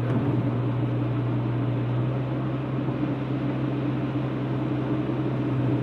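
Acura Integra's four-cylinder engine and tyres on a wet road, heard from inside the cabin while cruising: a steady low hum under an even road-noise hiss.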